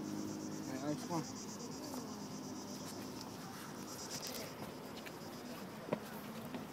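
Cicadas in the pines, a steady high buzz with a fast even pulse, with a faint voice in the first second.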